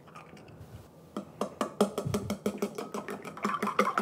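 Three raw eggs being beaten with chopsticks in a ceramic bowl: a quick, regular tapping of the sticks against the bowl, about five taps a second, starting about a second in.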